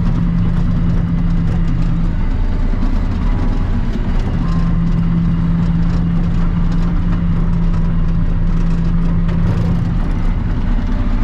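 Cat D7 Next Gen bulldozer's diesel engine running steadily, heard from inside the cab, with a low drone. A steady hum in the drone fades out about two seconds in and returns about halfway through.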